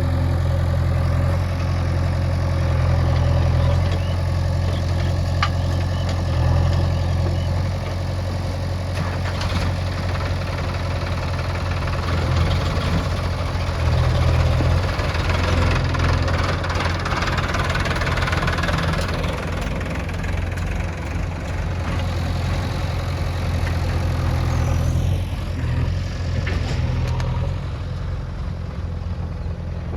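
Heavy diesel engine running steadily, with the level rising and falling somewhat as it works.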